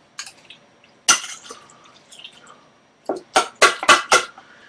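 Metal spoon clinking and scraping against a metal pot of macaroni and cheese. There is one sharp clink about a second in, then a quick run of about five clinks about three seconds in.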